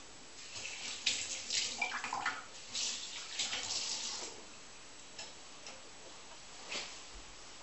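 Water running and splashing as an espresso portafilter is rinsed out, for about four seconds, then dying away to a quieter stretch with one light knock near the end.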